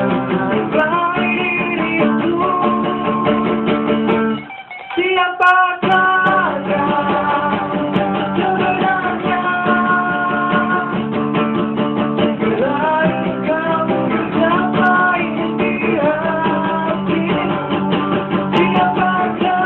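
A man singing a slow song over a strummed acoustic guitar and a picked electric guitar, with a short break about four and a half seconds in.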